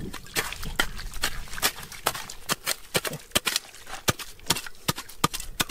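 Digging tool striking rock and stones: an irregular run of sharp clicks and knocks, several a second.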